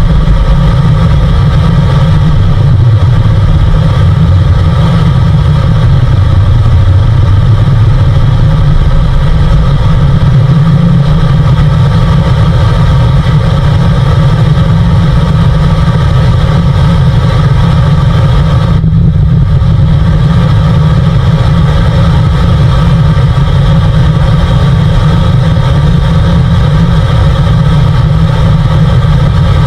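A deep, loud, wavering rumble with faint static hiss over it, coming through a car radio speaker tuned to a static station. It is an unidentified signal picked up by the radio.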